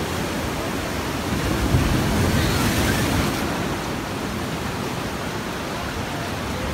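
Ocean surf washing against rocks and concrete breakwater blocks, a steady rushing that swells louder for a couple of seconds about a second and a half in.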